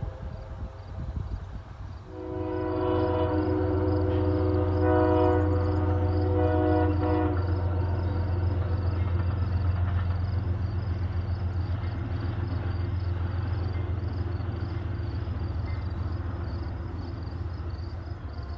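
Distant passenger train sounding its multi-chime horn, a chord of several notes blown in a few blasts for about five seconds, starting about two seconds in. Under it runs the train's steady low rumble, which slowly fades toward the end.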